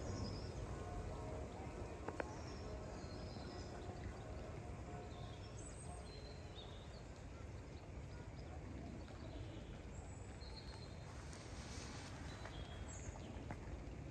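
Outdoor ambience: a steady low background noise with scattered short, high chirps throughout and a single click about two seconds in.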